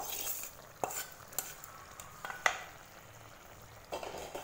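A spoon stirring hot tempering into a tamarind gravy in a kadai, knocking sharply against the pan a few times, the loudest knock about two and a half seconds in, over a faint sizzle.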